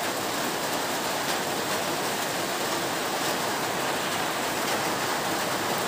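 Gulab jamun dough balls sizzling as they deep-fry in hot oil in a kadai over a lowered flame: a steady hiss.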